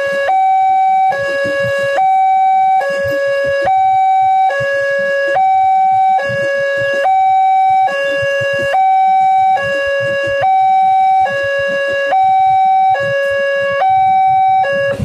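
Railway level-crossing warning alarm from the loudspeaker on the crossing signal post, sounding a steady two-tone signal that alternates between a low and a high pitch, each held a little under a second. It warns that a train is approaching or passing and the barriers are down, and it stops at the very end.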